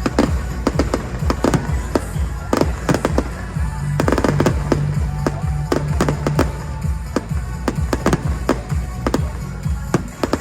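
Fireworks bursting in rapid, irregular bangs and crackles, with a dense cluster about four seconds in, over loud show music with a heavy bass.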